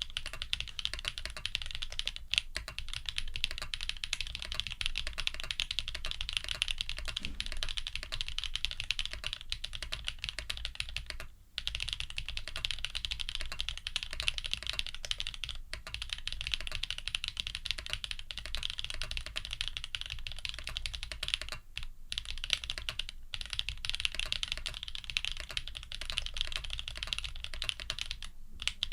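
Continuous fast typing on an F1-8X custom mechanical keyboard with lubed Deskeys Jade Black switches, an aluminium plate and Leopold PBT keycaps, giving dense, even key clacks. The typing breaks off briefly about eleven seconds in.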